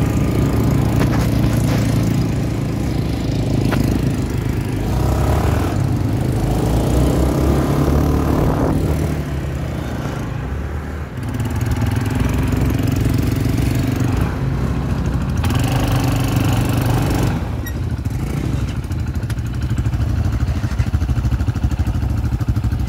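Quad bike (ATV) engine running on a dirt track, revving up and easing off so that its pitch rises and falls several times, with a brief drop about eleven seconds in.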